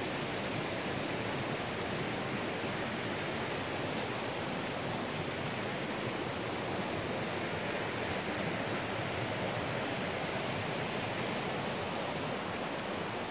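Steady rushing of flowing water from a stream or cascade, an even hiss with no breaks.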